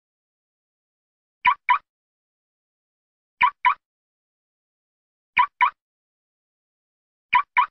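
Car locking with a remote key fob: the alarm gives a quick double chirp, beep-beep, repeated about every two seconds, four times.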